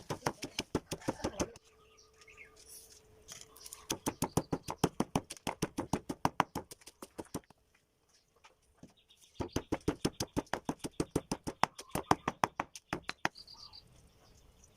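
Kitchen ingredients being struck hard and fast in an even rhythm, about six knocks a second, in runs of a few seconds with short pauses between them.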